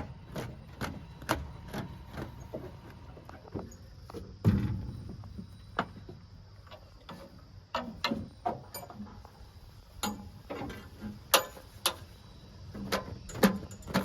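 Irregular sharp clicks and knocks of hard objects, a few much louder than the rest, over a faint low rumble.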